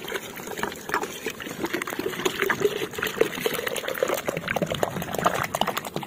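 Water being poured into an animal's burrow in wet ground to flush the animal out, gurgling and splashing, with a gurgle that rises in pitch around the middle.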